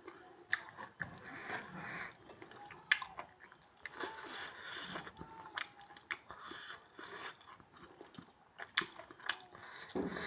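A person chewing and biting food close to the microphone, with irregular sharp crunches and clicks.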